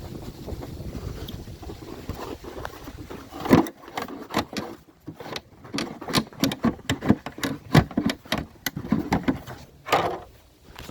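Plastic engine cover being pried and pulled loose by hand: a rapid, irregular run of knocks, clicks and scrapes of hard plastic, after a few seconds of rumbly handling noise.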